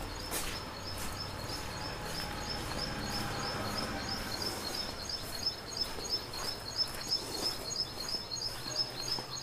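A bird chirping: a quick run of evenly spaced high chirps, about four a second, over a low outdoor background hum.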